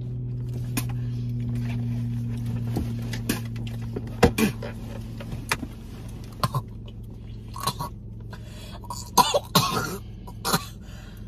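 A woman coughing and gagging at a mouthful of sushi she dislikes, in a few short coughs with a cluster of harsher coughs near the end.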